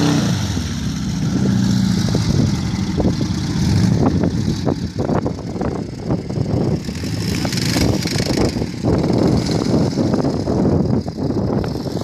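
Off-road buggy and quad bike engines running, rough and uneven, with many short crackles through the middle.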